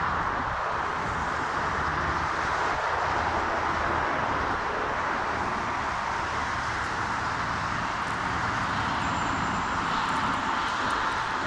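Boeing 767-300ER jet engines at takeoff thrust as the airliner lifts off and climbs out, a steady rushing jet noise.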